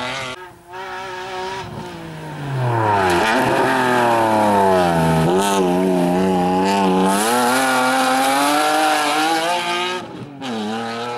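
BMW E36 race car's engine running hard past the roadside, its pitch falling and climbing several times with the throttle and gear changes. It is loudest through the middle.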